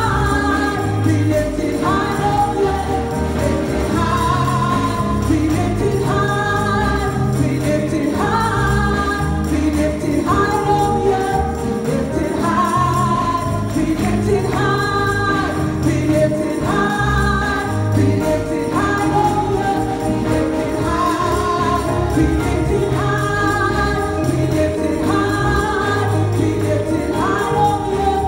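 Gospel worship music with choir-like voices over a steady beat, the chords changing about every two seconds.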